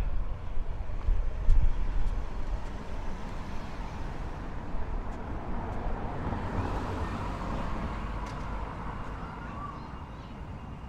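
A car driving past on the road: its engine and tyre noise is loudest at the start and dies away steadily over the following seconds, with a smaller swell of traffic noise partway through.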